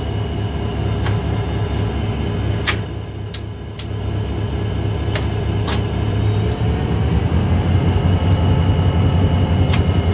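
EMD diesel engine of an HGMU30 locomotive running, heard from inside the cab. It idles with a steady low rumble, then grows louder with a slowly rising pitch as the throttle is notched up. Several sharp clicks come from the control handle being worked.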